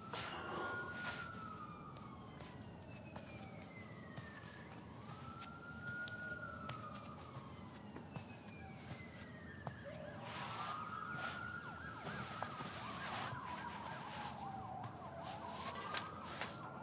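Police sirens wailing, at least two of them overlapping, each a slow rise and fall in pitch repeating every few seconds, fairly faint.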